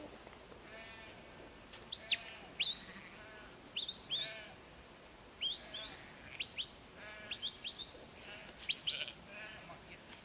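Sheep bleating again and again, a flock calling as it is moved. Sharp, high whistled chirps that sweep up and down come often over the bleats and are the loudest sounds.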